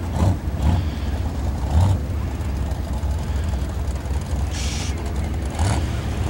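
Vehicle engines running with a steady low rumble, and a short hiss about four and a half seconds in.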